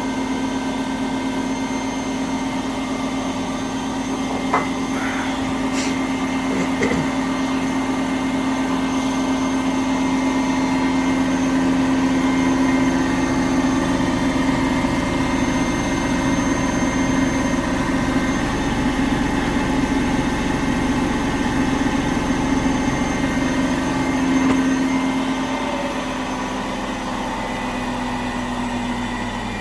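Indesit washing machine in its final high-speed spin at about 1400 rpm: a steady hum with a motor whine that builds slowly over the first several seconds, then holds, easing a little near the end.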